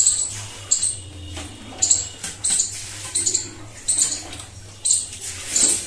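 Close-miked chewing of food, a crisp smacking crunch repeating a little more than once a second.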